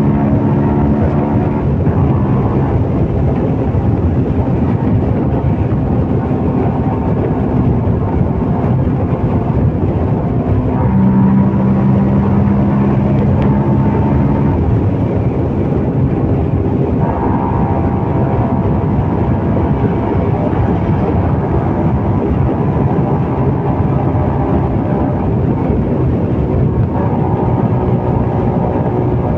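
CFMOTO Papio 125's single-cylinder engine running under way, its note shifting up and down several times as the throttle and gears change, over a steady rush of wind and road noise.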